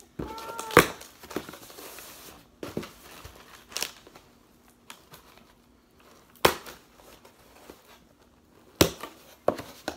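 A cardboard shipping box being cut open with a box cutter: packing tape slicing and tearing and cardboard flaps rustling, broken by several sharp clicks and knocks.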